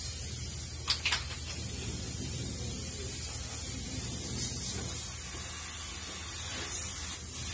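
Aerosol can of spray adhesive spraying in one long, steady hiss, with two brief clicks about a second in and a low steady hum underneath.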